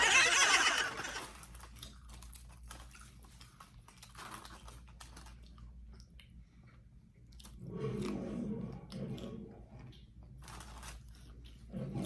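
Crispy fried chicken being bitten and chewed close to the microphone: a loud crunch in the first second, then scattered crackles of chewing.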